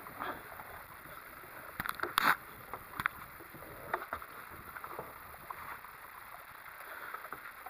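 Handling noise from a phone camera being moved around against clothing, with several sharp knocks, the loudest a cluster about two seconds in. Beneath it, a steady low wash of water around a small boat.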